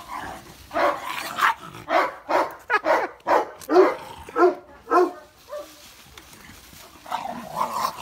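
Dogs barking repeatedly, about two barks a second for several seconds, then easing off, with a few more barks near the end.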